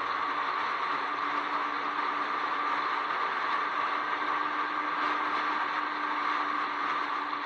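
Jeep driving steadily at speed, its tyres giving a steady road noise with a faint, even hum that comes in about a second in.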